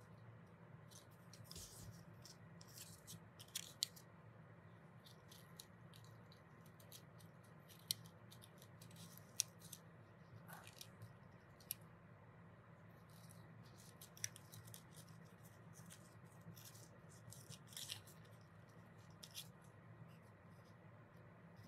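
Faint paper handling: stiff cut-paper petals rustling and crinkling as they are pressed and glued together. The rustles come irregularly, with a few sharper ticks, over a low steady hum.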